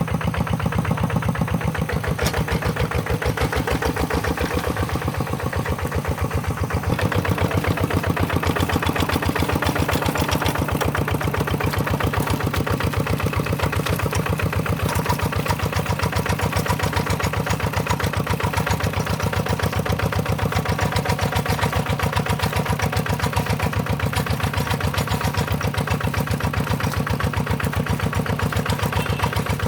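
Tractor engine running steadily under load, with a fast, even pulse; it dips slightly about six seconds in and picks up again.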